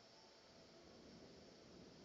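Faint, steady hiss of rain, a little louder in the second half.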